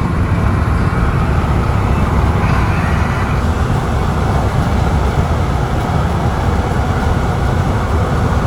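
Steady loud rumble and rushing noise of a moving vehicle, heavy in the low end.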